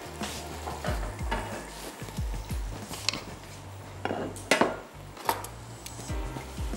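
Utensils stirring and scraping in a mixing bowl, with three sharp metal clinks in the second half, over the sizzle of fish frying in a pan.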